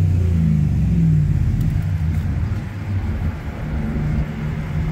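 2009 Dodge Ram 1500's engine and exhaust running steadily at low revs, a deep even note that eases slightly in the middle.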